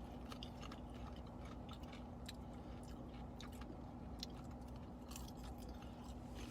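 People chewing drizzled popcorn: faint, irregular small crunches over a steady low hum.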